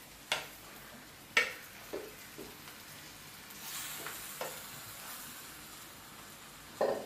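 Wooden spatula knocking and scraping against a steel pan as mashed boiled tapioca is tipped into a clay pot of frying masala: a series of sharp irregular knocks, the loudest near the end. A soft sizzle from the pot rises a little about halfway through.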